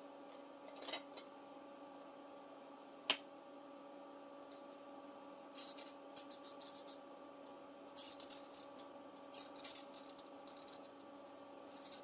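Marker pen scratching across a paper savings-challenge chart in short runs of quick colouring strokes, over a faint steady hum. A single sharp click sounds about three seconds in.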